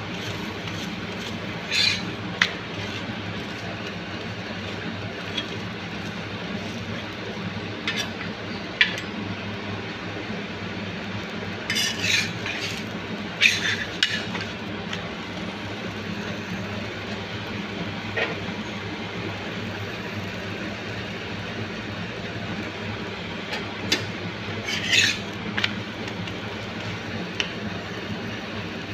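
Flat stainless-steel spatula scraping and clinking against a tawa as a stuffed paratha is pressed and turned in oil. Short scrapes come now and then in small clusters over a steady background hum.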